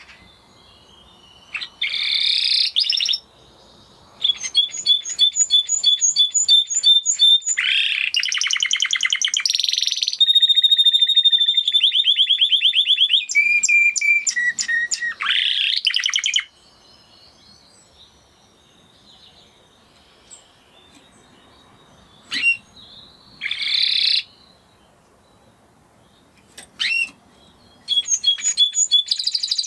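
Spanish Timbrado canary singing: phrases of rapid repeated notes and metallic trills, some held on one pitch and others sweeping up, broken by a long pause of scattered single calls before the song starts again near the end.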